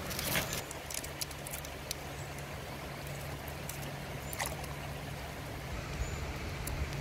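Shallow stream water running steadily, with scattered light clicks and crackles of papery garlic skins being peeled off by hand.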